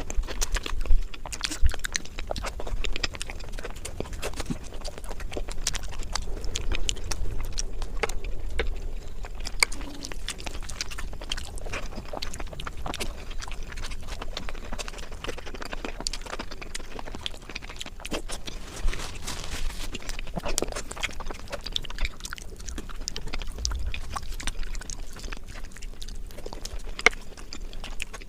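Close-miked eating sounds: a person chewing spicy egg biryani with gravy, a steady run of wet mouth clicks and smacks.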